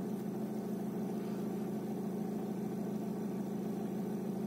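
PSA (Citroën-Peugeot) 1.6 diesel engine idling steadily with an even hum, running now that ECU reprogramming has cleared its AdBlue no-start fault.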